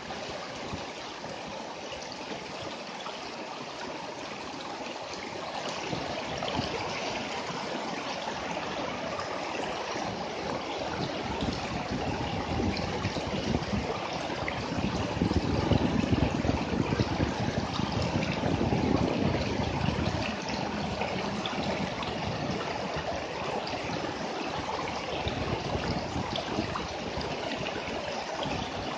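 River water rushing over rocks in shallow rapids: a steady broad rush, swelling somewhat louder for a few seconds around the middle.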